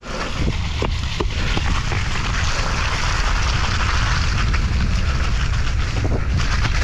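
Wind rushing over the microphone during a fast downhill mountain-bike descent, with irregular knocks and rattles from the bike over rough ground. The sound cuts in sharply at the start.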